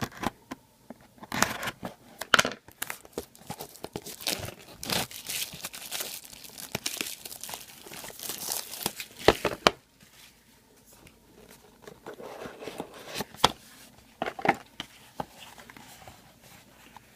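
A trading card pack's plastic wrapper being torn open and crinkled, with several seconds of dense crackling. Then quieter, scattered rustles and clicks of the cards being handled.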